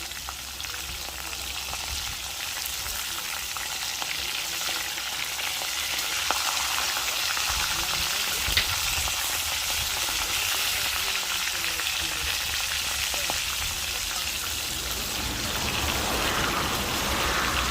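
Pieces of wild rooster frying in hot oil in a pot, a steady sizzle with small crackles as the meat browns. A single sharp knock about halfway through.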